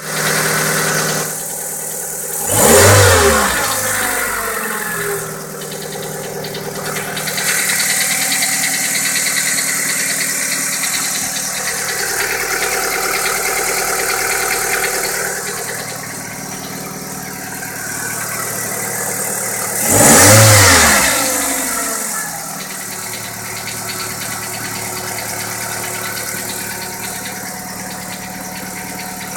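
2009 Kia Rio engine idling, revved briefly twice, about two seconds in and again about twenty seconds in, the pitch rising and falling back each time. The owner presents it as knocking.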